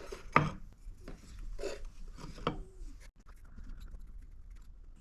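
Scraping and rubbing of a sand mold and its dry core being handled, with a sharp knock about half a second in and a few lighter knocks after.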